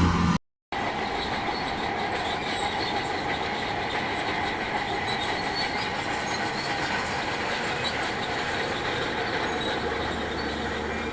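Crawler bulldozer on the move: a steady grinding with a high metallic squeal from its steel tracks, starting after a sudden half-second dropout near the beginning.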